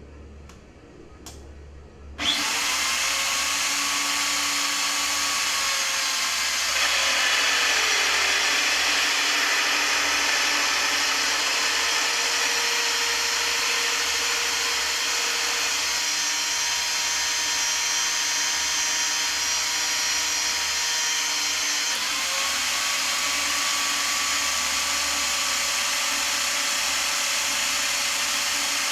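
Nitto Kohki ATRA ACE LO-3550 magnetic base drill's motor starting suddenly about two seconds in, then running with a steady whine while its annular cutter drills a hole in steel. About seven seconds in the whine drops in pitch and grows slightly louder as the cutter takes the load. Its pitch rises again past the twenty-second mark as the load eases.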